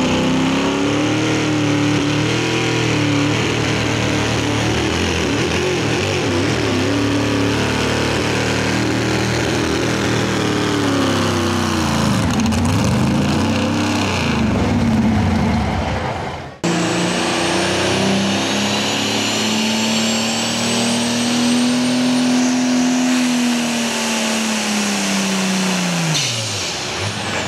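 Supercharged pulling-truck engines at full throttle under the load of a pulling sled. The first engine's revs swing up and down repeatedly about ten seconds in; after a sudden break a second engine holds high revs with a thin rising whine, then winds down near the end.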